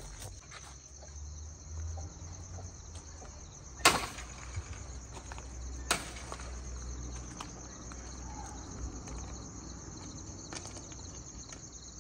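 Crickets chirping steadily, with two sharp knocks about four and six seconds in, the first the loudest.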